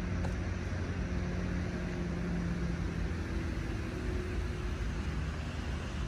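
Steady low rumble of distant city traffic, with a faint engine hum running through it.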